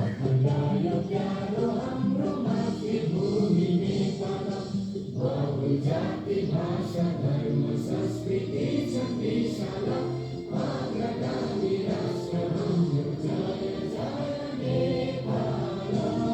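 A group of voices singing a song together, choir-like, with music, running steadily throughout.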